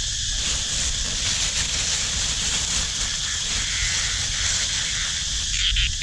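Steady high-pitched buzzing of an insect chorus, with rustling from the handling of a cloth hand net as a caught cicada is taken out of it; the rustling stops near the end.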